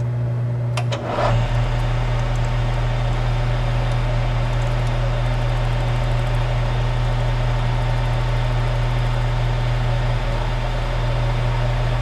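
Metal lathe running steadily, its motor and spindle turning a shim stack pressed between the chuck fixture and the tailstock, with a brief click about a second in.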